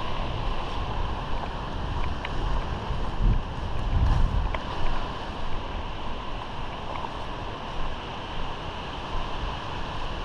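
Wind buffeting the microphone: a steady rushing noise with irregular low gusts, and a few faint clicks.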